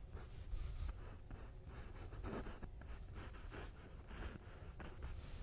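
A paintbrush stroking oil paint onto canvas: a faint run of short, scratchy brush strokes, thickest in the middle.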